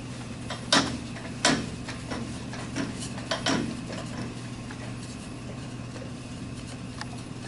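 A turned wooden plate being twisted loose from a keyed lathe chuck, with the chuck key braced on the tool rest so the jaws open instead of the chuck unscrewing: a handful of scattered metal-and-wood clicks and knocks over a steady low hum.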